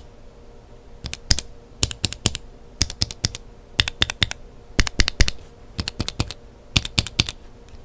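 Mechanical keyboard switches with lubed Kailh Burgundy linear stems in different housings, pressed in quick runs: short clusters of sharp clacks about a second apart.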